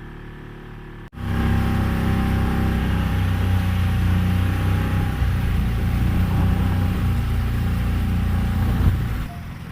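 Tourist motorboat's engine running steadily under way, coming in abruptly about a second in and cutting off near the end.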